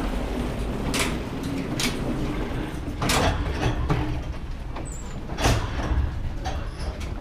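Airport terminal ambience: a steady low rumble with a few sharp knocks and clacks, the loudest about five and a half seconds in.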